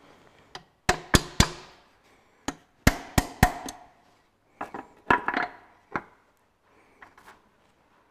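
Hammer striking a connecting-rod big-end cap on a Ferguson 23C diesel engine to loosen the cap off the crankpin. Sharp metal knocks come in quick runs of three and four, then lighter, scattered taps and clinks in the second half as the cap comes free.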